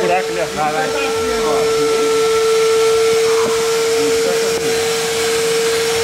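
Household vacuum cleaner running steadily, a constant motor whine over a rushing hiss, as it sucks the air out of a large plastic garbage bag. Voices are heard briefly at the start.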